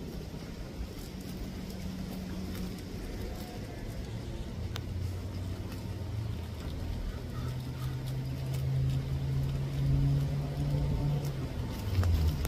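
Low, steady engine hum of a passing motor vehicle, growing gradually louder, with a few faint clicks over it.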